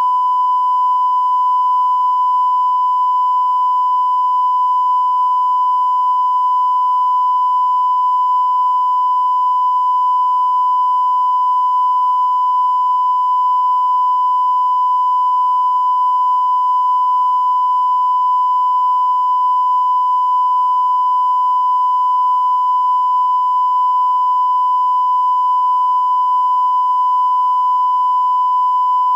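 Steady 1 kHz reference tone, the line-up tone that accompanies colour bars, held unbroken at a constant level with faint overtones above it.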